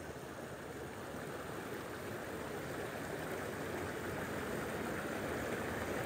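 Creek water running steadily, an even rushing hiss.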